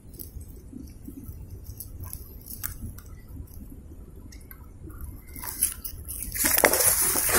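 Small rustles and clicks of hands handling a caught fish and knotting the cord of a mesh bag. About six seconds in, loud splashing and sloshing water takes over as the mesh bag holding the fish is lowered into the water.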